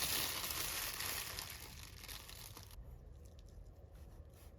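Crinkling and rustling of food packaging being handled for almost three seconds. It then cuts off abruptly to quiet room sound with a few faint taps.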